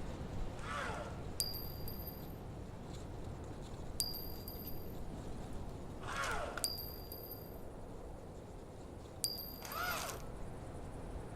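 Electronic robot sound effects: four short high beeps, each starting with a sharp click, repeat about every two and a half seconds, with three falling swooping tones in between, over a steady hiss.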